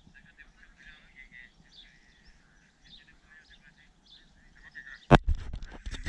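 Faint chirping of small birds in the background, with a single sharp knock close to the microphone near the end.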